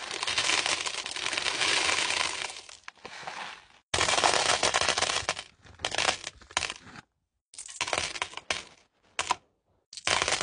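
Small crystal chips and tumbled gemstones poured into a plastic bin: a dense rattling clatter of many small stones, which fades out after about two and a half seconds. From about four seconds in come shorter bursts of clattering stones that start and stop abruptly.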